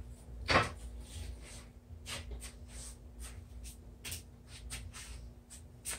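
A wooden 2x4 board being handled on a workbench: one sharp knock about half a second in, then light rustling and small taps as it is shifted and lifted.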